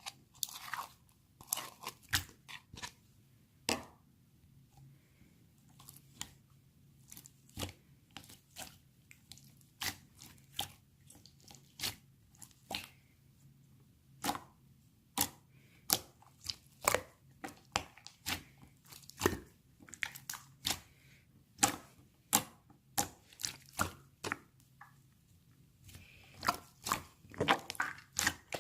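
Close-up crisp crunching and crackling: sharp, short snaps at an irregular pace, roughly one to three a second, with a few brief pauses.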